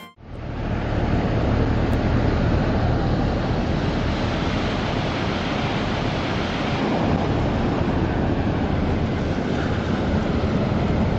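Ocean surf breaking and washing up a sandy beach in a steady, continuous rush, with wind on the microphone.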